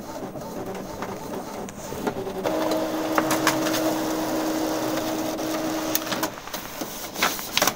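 Epson M2170 inkjet printer printing a page: a faint motor whine, then a louder steady hum from about two and a half seconds in to about six seconds, followed by a run of sharp clicks near the end.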